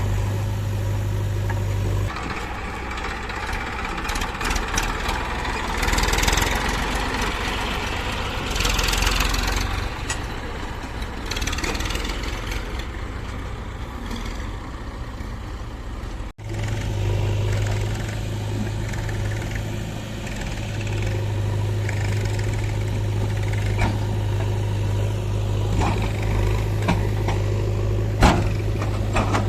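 Diesel engines of a JCB 3DX backhoe loader and farm tractors running at work loading mud, with a steady low hum and louder surges of noise during the first half. The sound breaks off for an instant about sixteen seconds in, then runs on steadily with a few sharp knocks near the end.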